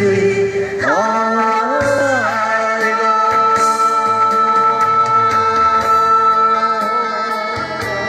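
A man and a woman singing a duet through handheld microphones over backing music, gliding between notes and then holding one long note from about three seconds in until near the end.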